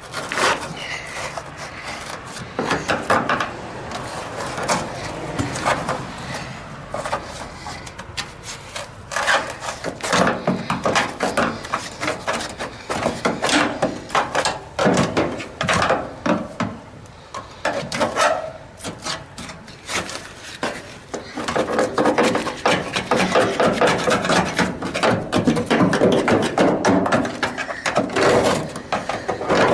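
A long screwdriver scraping and prying hardened old expanding foam out of a rusted car body cavity, the C-pillar of a 1974 VW Super Beetle: irregular rasping scrapes and crunches, coming in quick runs with short pauses.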